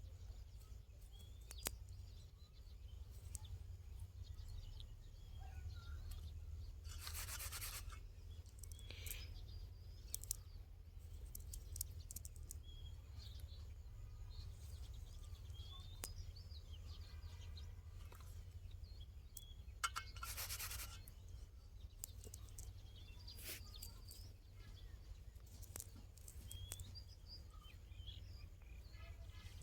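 Faint outdoor ambience: a steady low rumble with scattered short bird chirps, broken twice by a brief rustling or scrubbing noise, about a quarter of the way in and again about two-thirds of the way in.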